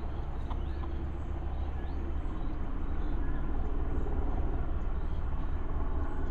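Steady low outdoor rumble, getting slightly louder about two and a half seconds in, with a few faint high chirps over it.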